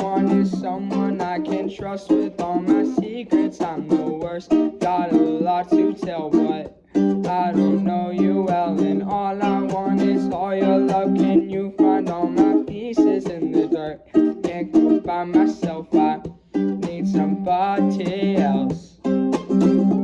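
Ukulele-led pop music: held chords under a wavering melody line, with frequent sharp strums or beat hits, and two brief drops in level about 7 and 16 seconds in.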